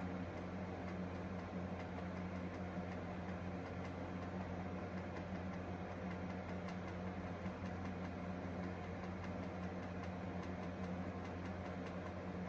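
Steady low hum of room tone, with faint scattered ticks.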